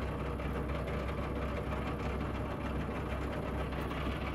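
Narrowboat's diesel engine running steadily while the boat is under way, an even low sound with no change.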